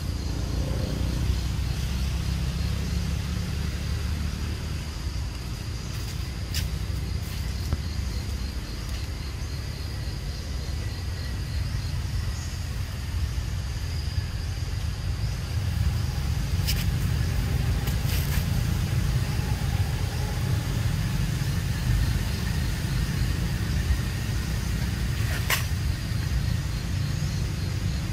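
Outdoor ambience: a steady low rumble, with a faint high-pitched pulsing drone above it and a few sharp clicks, the clearest about two-thirds and nine-tenths of the way through.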